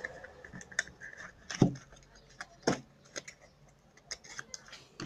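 Homemade slime, made from stress-ball filling mixed with shaving foam, being squeezed and worked by hand: scattered small clicks and crackles, with two louder pops about a second apart near the middle.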